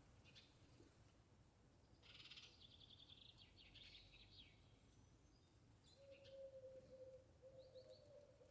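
Faint birdsong at dawn-chorus level: a songbird's high, fast trill about two seconds in, then a lower, steady call repeated in short phrases from about six seconds on.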